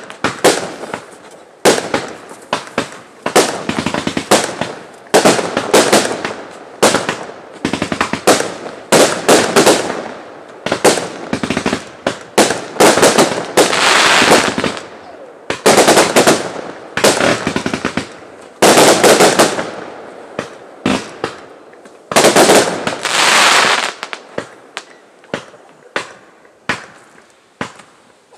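Aerial fireworks going off in a long run of sharp bangs, some in rapid clusters, with several denser, longer stretches of bursting about halfway through and in the last third.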